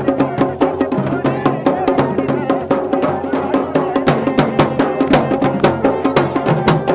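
Live Garhwali band music: dhol and damau drums beating a fast, steady rhythm under a masakbaja bagpipe playing a melody over its held drone.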